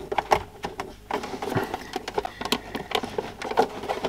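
Plastic case of a small portable CRT television being handled and pried at: a run of irregular clicks and knocks as its clipped-together halves are worked and the set is turned over on the bench.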